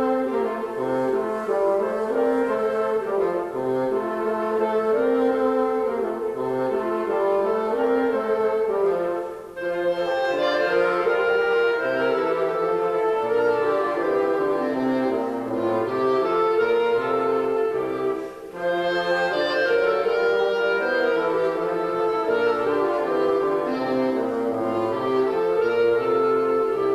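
Live brass and woodwind ensemble playing a tune in several parts, with two short breaks between phrases.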